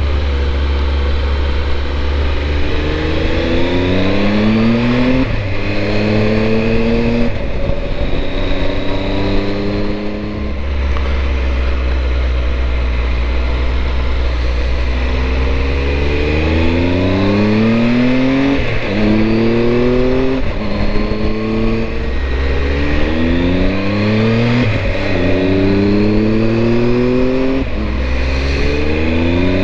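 Triumph Tiger 1200's three-cylinder engine pulling hard uphill, its pitch climbing and then dropping sharply at each gear change, about a dozen times in all, most of them in the second half. Low wind rumble on the microphone fills the stretches of steadier riding.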